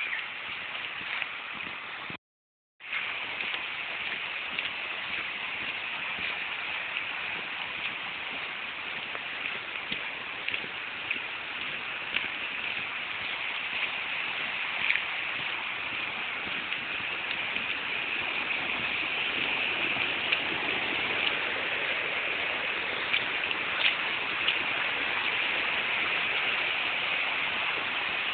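Steady rushing of a small woodland stream, slowly growing louder, with a few faint ticks over it. The sound cuts out completely for about half a second near the start.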